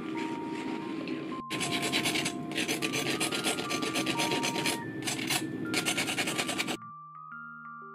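Table knife scraping the charred, burnt crust off the edges of a toasted sandwich in rapid rasping strokes, stopping abruptly near the end.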